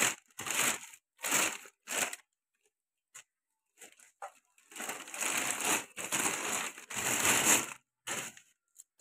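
Plastic packaging crinkling and rustling as a new flywheel is pulled out of its plastic bag: several short bursts in the first two seconds, then a longer stretch of rustling from about four and a half to nearly eight seconds.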